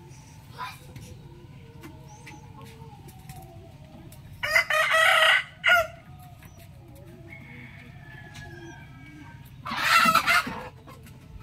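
Rooster crowing: two loud crows, one about four and a half seconds in and another near the end, with fainter calls between them over a steady low hum.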